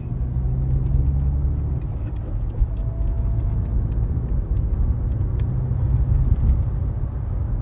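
Steady low rumble of a car in motion, engine and road noise heard from inside the cabin.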